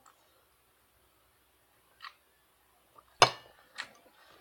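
Tableware knocking: a few short sharp clinks of utensils against dishes, the loudest a little after three seconds in, followed by a lighter one.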